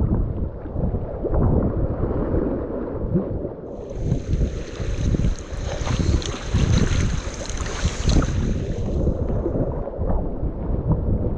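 Strong wind buffeting the microphone with a steady low rumble, over water sloshing around a kayak in rough waves. About four seconds in, a hissing rush rises over it and fades after about five seconds.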